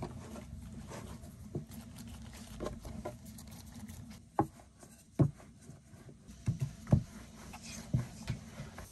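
Irregular knocks and taps over a low steady rumble, with a handful of louder knocks in the second half.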